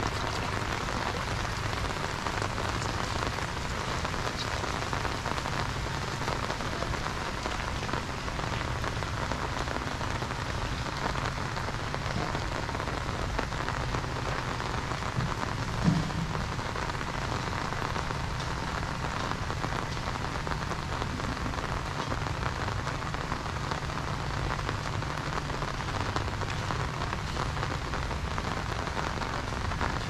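Steady rain falling on an umbrella held overhead, with one brief low thump about halfway through.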